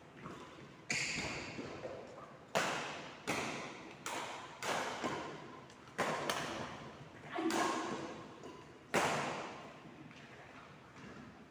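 A string of irregular thuds and taps, each ringing out in a large, echoing room, about ten in all.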